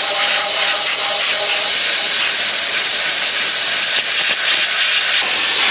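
Sandblaster driven by compressed air, blasting sand at a rusted vehicle frame to strip it down to weldable bare metal: a loud, steady hiss.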